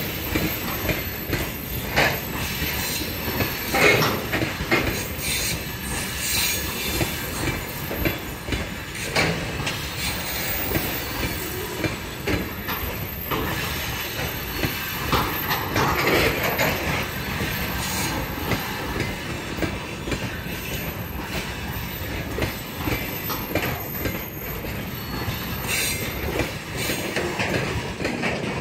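Freight train of covered hopper wagons rolling past, with steady rumbling wheel noise, occasional knocks and clacks from the wheels and couplings, and brief wheel squeals, the loudest about four seconds in and again around sixteen seconds.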